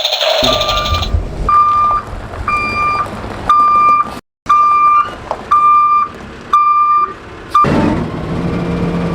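Excavator's reversing alarm beeping steadily about once a second, eight beeps in all, over a low engine rumble.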